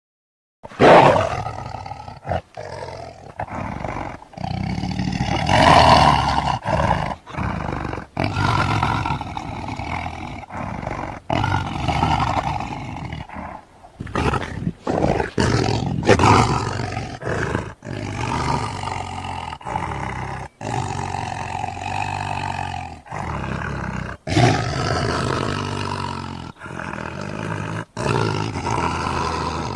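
Custom-made cartoon dinosaur roar and growl sound effects played one after another, each a second or a few long, with short sudden breaks between them.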